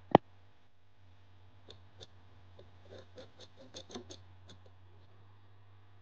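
A single sharp click right at the start, the loudest sound here, then a run of small irregular clicks and scrapes as a snap-off utility knife blade cuts and scrapes at a hardened black blob on a wooden board.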